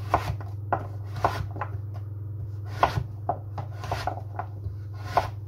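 Chef's knife dicing peeled butternut squash on a plastic chopping board: a dozen or so sharp, irregularly spaced strikes of the blade through the flesh onto the board. A steady low hum runs underneath.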